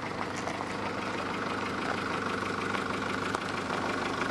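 Bixler RC plane's electric motor and pusher propeller running at a steady pitch.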